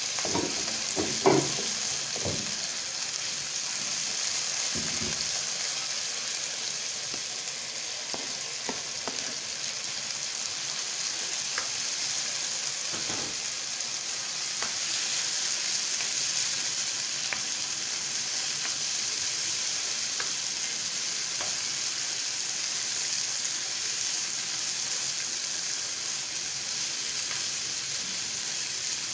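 Chicken and onions sizzling steadily as they fry in a nonstick wok. A few short knocks sound in the first half, and a spatula stirs and scrapes the pan now and then.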